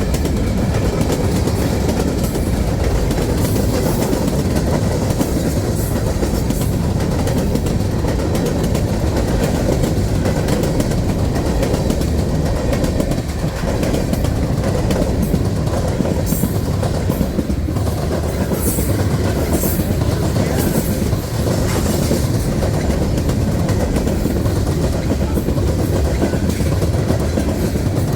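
Canadian National freight train rolling past, a steady rumble of wheels with clickety-clack over the rail joints. A few brief high squeaks come from the wheels partway through.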